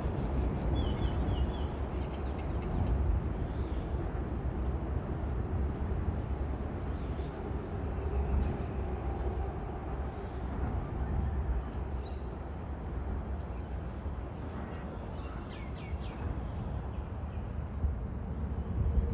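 Steady low rumble of motorway traffic overhead, with a small bird chirping in short quick runs about a second in and again near the end.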